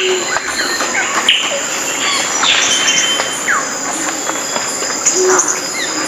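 Several birds chirping and whistling at once, with quick falling whistles, over a steady high-pitched insect drone.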